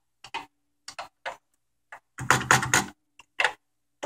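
Keys on a Commodore PET 8032 keyboard being typed one at a time, as sharp irregular clicks, with a louder quick run of keystrokes about two seconds in.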